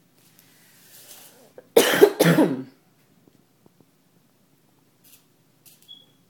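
A person coughs twice in quick succession about two seconds in, after a short breath in. A few faint small clicks follow near the end.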